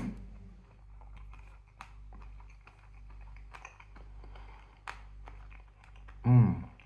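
Mouth chewing a dried chilli pepper, with many small crisp clicks of the dry flesh breaking. About six seconds in there is one short, loud vocal sound from the throat with a falling pitch.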